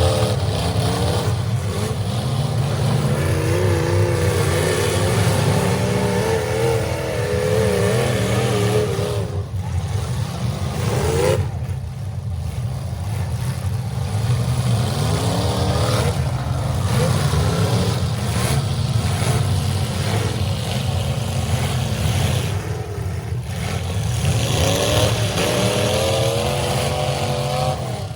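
Several demolition derby cars' engines running hard and revving together, their pitch rising and falling over a steady low rumble, with one quick rev about eleven seconds in.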